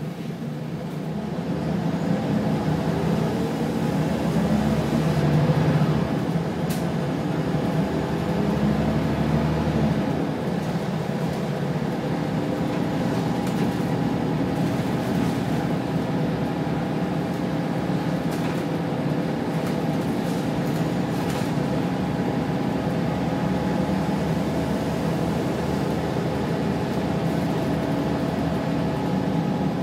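Scania single-deck bus engine heard from inside the passenger saloon: the engine note builds over the first few seconds as the bus pulls away, then runs steadily under way. A few light clicks or rattles from the body come through in the middle.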